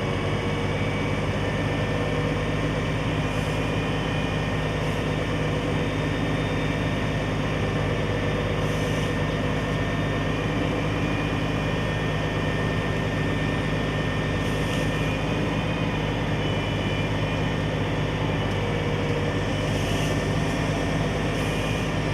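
A large engine running steadily at a constant speed, an even low hum, with a few faint brief hisses over it.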